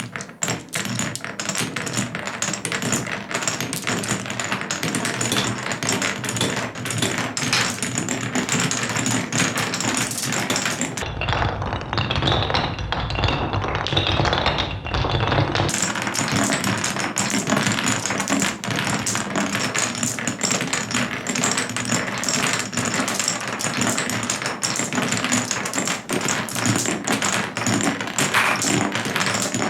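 Marbles rolling and clacking along a wooden Cuboro marble run, a dense stream of clicks and rattles on the wooden blocks. Midway, for about five seconds, the sound turns into a muffled lower rumble before the bright clicking returns.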